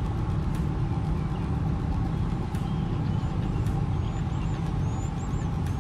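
Steady low rumble with a faint steady hum over it, a few faint clicks, and small birds chirping faintly from about three seconds in.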